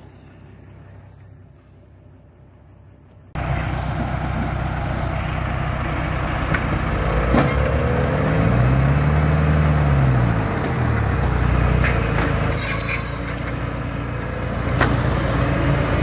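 Heavy machinery's engine working under load while pulling an overturned cattle trailer out of the mud. It sets in abruptly a few seconds in, revs up and back down about halfway through, and comes with scattered knocks.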